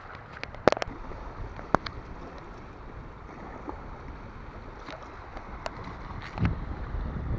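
Steady wind noise on the microphone with small waves lapping at a shell-strewn shoreline. Two sharp clicks come in the first two seconds and a dull thump near the end.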